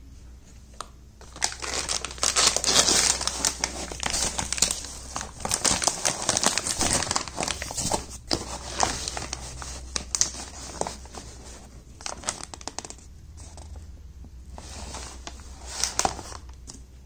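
A plastic protein-powder pouch crinkling and crackling as it is handled and lifted out of a cardboard box, starting about a second and a half in, busiest for the next several seconds, with another short burst near the end.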